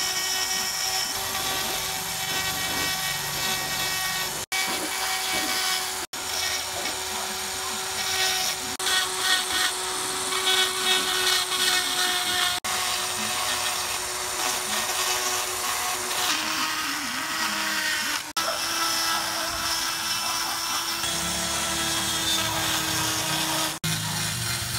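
Handheld electric rotary tool running at high speed with a steady whine, its fine bit grinding into hardened cement as a statue is carved. The pitch drops a little about two-thirds of the way through, and the sound cuts out for an instant several times.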